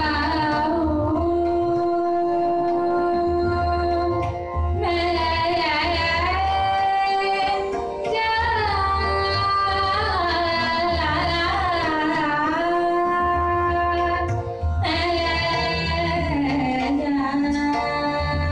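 A woman singing Hindustani classical vocal in raga Yaman, in long held notes and sliding, wavering ornamented phrases, with short breaks for breath, over a steady tabla accompaniment.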